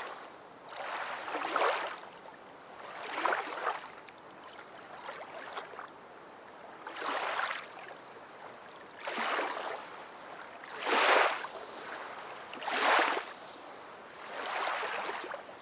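Aquarium water rushing in about seven repeated swells, each about a second long and a second or two apart, with a steady quieter wash between them.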